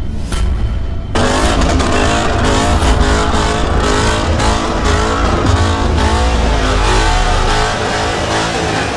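Ford Mustang's engine revving amid a shouting, cheering crowd, with a strong low rumble. The first second is backing music with a beat, cut off when the car and crowd come in.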